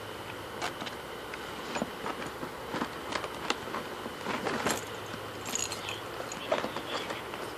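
Handling noise as things are packed into a bag: scattered small clicks, taps and rustles, busiest about halfway through and again near the end.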